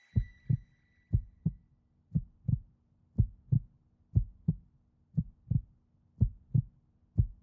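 Heartbeat sound effect: pairs of low thumps (lub-dub), about one beat a second, evenly paced, adding suspense.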